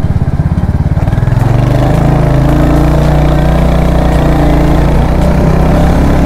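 Royal Enfield Hunter 350's single-cylinder engine running, a fast even thumping at first that settles into a steady drone with a held pitch from about a second and a half in.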